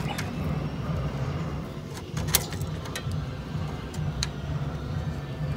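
Two sharp metallic clicks, about two and four seconds in, as drum-brake shoe hardware and springs are handled and fitted on the backing plate, over a steady low hum.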